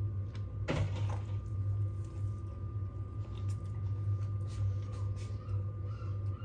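A person chewing a bite of a sausage sandwich, with small mouth clicks, over a steady low hum.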